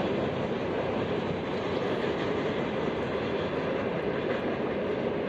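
Train rolling past, a steady rumble of wheels on rail with no let-up.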